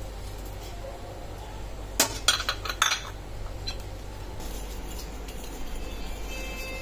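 A metal fork and ceramic bowls clinking, with a few sharp clinks about two to three seconds in. Lighter fork scraping and tapping follows as the beaten egg mixture is stirred.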